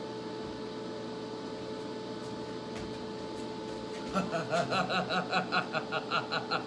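A man laughing in quick rhythmic pulses, about five a second, starting about four seconds in, over a steady electrical hum.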